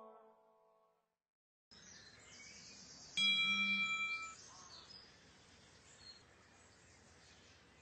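The last sung note fades out, and after a short silence faint ambience begins with small bird chirps. About three seconds in, a bright chime of a few steady tones sounds for about a second.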